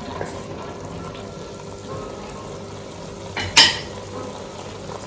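Pot of stewed chicken gizzards sizzling and simmering on the stove, with a short, loud kitchen sound about three and a half seconds in.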